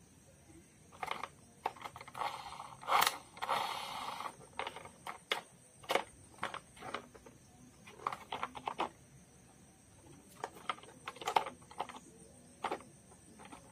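Hard plastic toy car being handled and turned over: scattered clicks and knocks of plastic, with a longer scraping rattle about two to four seconds in.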